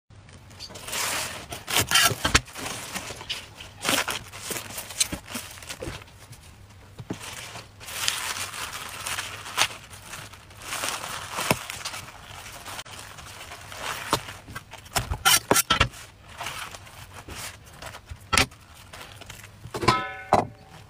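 Spring onion stalks rustling and crackling as they are handled and cut on a wooden chopping board, with several sharp knocks of a cleaver on the board and a short squeak near the end.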